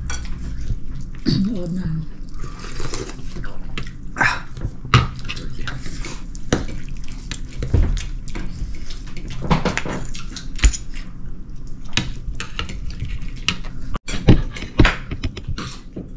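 Irregular clinks and knocks of dishes and metal utensils, with some water dripping and running between them, over a steady low hum.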